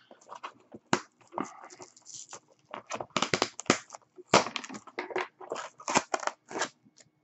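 A pen tip scraping and jabbing at nylon filament tape on a small cardboard box, with irregular crackling, scraping and tearing of tape and cardboard and a few sharper snaps, the loudest about four seconds in.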